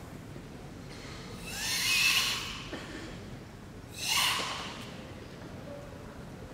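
Forceful hissing breaths of Sanchin kata breathing: a longer drawn-out exhale about a second and a half in, then a shorter, sharper one about four seconds in, made while the body is held tense.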